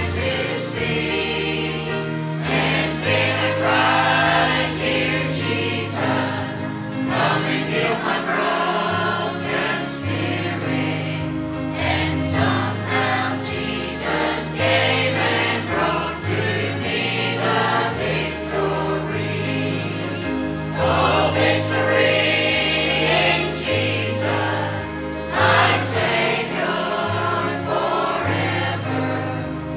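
Choir singing a gospel song with instrumental backing: a bass line stepping between held notes under the voices, and sharp percussive hits throughout.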